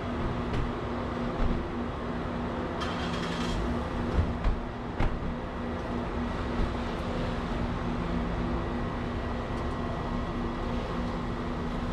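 A steady low mechanical hum, with a few short thumps about four to five seconds in, one of them the SUV's door being shut.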